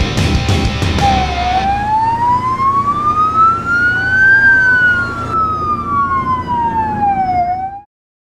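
A siren wailing through one slow cycle, rising for about three seconds and falling back for about three more, over the tail of rock music that ends about two seconds in. The sound cuts off to silence shortly before the end.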